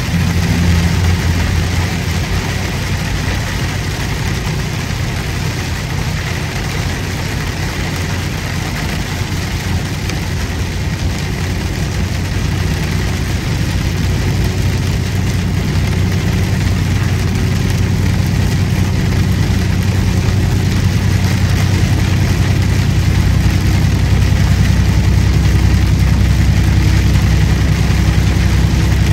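Semi-truck engine running steadily at road speed, heard from inside the cab as a low drone under a steady wash of road noise, growing a little louder in the second half.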